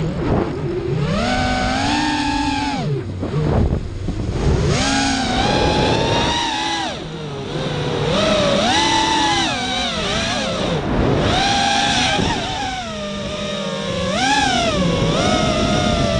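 Walkera F210 racing quadcopter's brushless motors and HQ propellers whining, the pitch swinging up and down every second or two as the throttle changes in flight.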